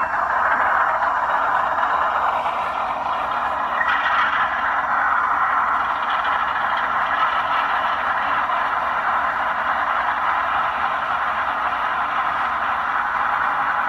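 Onboard LokSound decoder of a ScaleTrains ES44 GEVO model locomotive playing its diesel prime-mover sound after start-up, heard through the model's small speaker as a steady engine run. It grows brighter and hissier about four seconds in.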